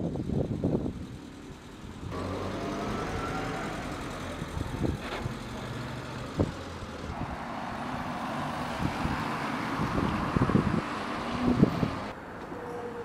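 Street ambience with road traffic running steadily. The background changes abruptly three times, about 2, 7 and 12 seconds in, with a few short knocks along the way.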